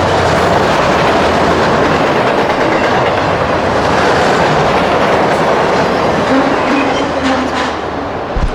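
Freight train cars rolling past loudly, steel wheels clacking over the rail joints with a steady low hum underneath. The noise eases near the end, and a short thump comes just before it finishes.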